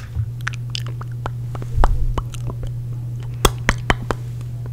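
Close-miked ASMR mouth sounds: a string of wet lip and tongue clicks and smacks, a few sharper ones near the end, over a steady low hum.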